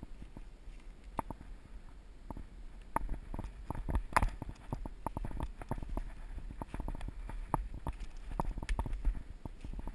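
Footsteps crunching through dry fallen leaves and twigs, irregular and getting quicker and louder about three seconds in, with one sharper crack about four seconds in. A low rumble of wind and handling on the microphone runs underneath.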